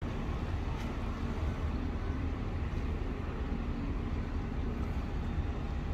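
Steady low rumble of outdoor city background noise, with no distinct events.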